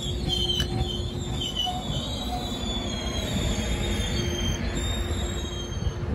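Trinity Railway Express bilevel passenger train passing, its steel wheels squealing on the rails in a high, wavering tone over a steady rumble. The squeal weakens about halfway through as the last car goes by.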